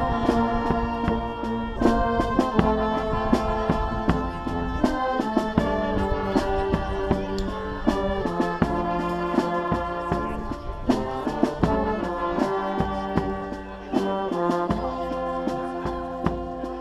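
Brass band playing: sousaphones, trumpets and trombones holding a melody over a bass drum beating time.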